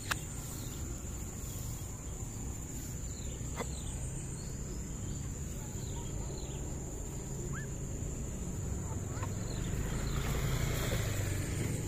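Outdoor field ambience dominated by a steady, high-pitched insect drone, with short falling bird chirps every few seconds and a low rumble on the microphone. About ten seconds in, a swell of rustling comes from grass being pushed through.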